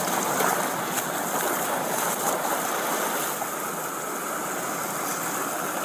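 Fast floodwater rushing across a road, a steady rush of water.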